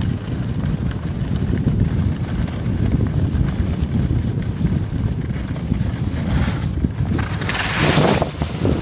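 Wind buffeting the microphone during a downhill ski run, a steady low rumble, with a louder hiss for about a second near the end.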